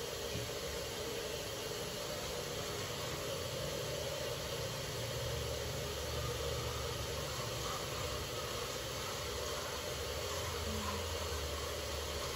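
Steady background hiss with a low hum that grows stronger about five seconds in; no distinct event stands out.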